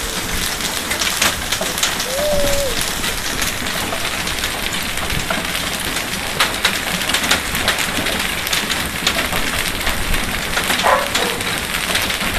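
Hailstorm: hailstones and heavy rain pelting a paved driveway and lawn. A dense, steady hiss with many sharp ticks of stones striking the ground.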